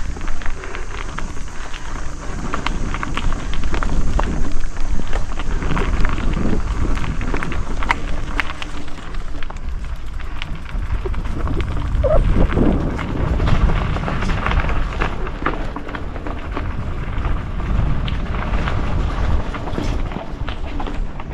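Mountain bike rolling down a narrow dirt trail: tyres on dirt and rocks, with many short rattles and clicks from the bike and a steady low rumble.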